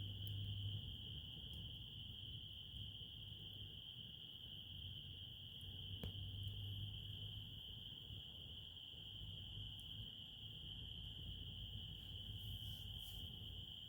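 Crickets chirring in a steady, continuous high-pitched chorus, with a single sharp click about six seconds in.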